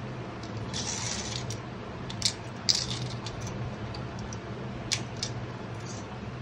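Stainless steel ear picks clinking against each other and against a clear plastic storage case as they are packed into it. A brief scraping rustle comes about a second in, then a handful of sharp, light clicks.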